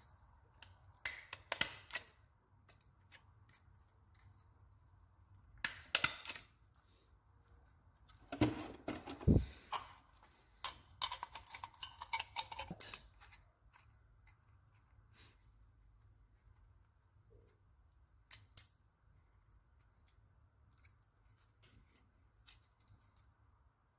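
Thin aluminium can pieces being handled and pressed together: scattered light clicks and crinkles of thin sheet metal in a few short clusters, the busiest stretch about eight to thirteen seconds in.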